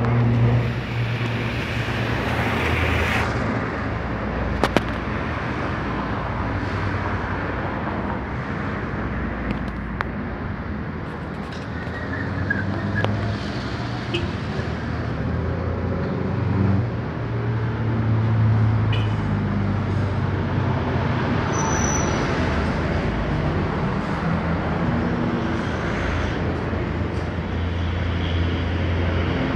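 Steady low engine rumble outdoors that swells and fades, with the drone of aircraft high overhead blending into street-traffic noise.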